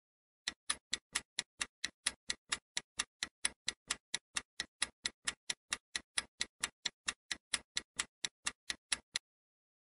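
Countdown-timer ticking sound effect: a fast, even clock-like tick about four times a second, starting about half a second in and stopping near the end.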